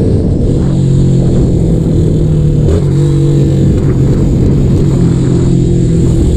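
150 cc fuel-injected motorcycle engine running loud through a gutted (baffle-removed) Roncar exhaust while riding. The engine note holds fairly steady and steps up and down in pitch a few times.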